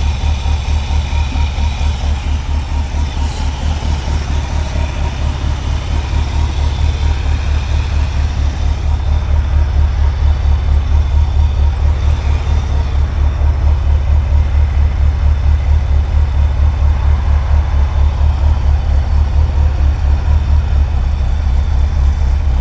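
Pontiac 350 V8 idling with a loud, even throb. It is running rough and missing, which the mechanics put down to the distributor sitting a tooth off.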